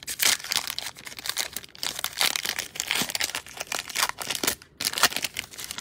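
Foil wrapper of a basketball trading-card pack crinkling and tearing as it is ripped open by hand, a run of uneven crackles.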